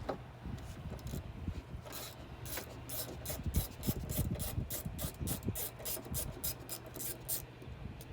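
Socket ratchet clicking in a run of quick strokes, about three or four a second, while backing out the 10 mm bolts that hold a door handle.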